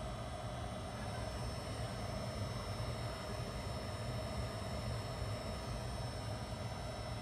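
Steady background hum and hiss of the room, with no distinct events.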